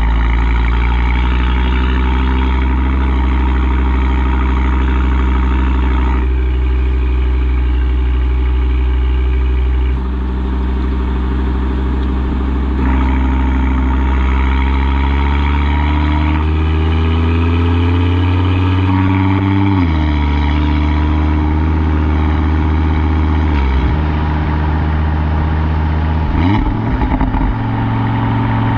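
Audi RS3 8V's turbocharged 2.5-litre five-cylinder heard at the rear exhaust, both exhaust valves held open by an aftermarket SST valve controller, pulling along at moderate speed. A loud, deep, steady drone whose pitch climbs gradually and drops sharply a couple of times, about two-thirds of the way through and again shortly after.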